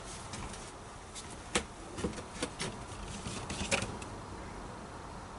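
Faint handling sounds: a paper manual rustling and a few scattered sharp clicks, over a faint low hum.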